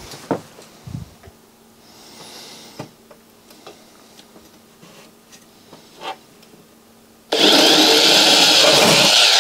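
Handheld electric drill drilling a hole through a CD player's sheet-metal chassis, starting about seven seconds in and running steadily for about two seconds. Before it, only a few faint handling clicks.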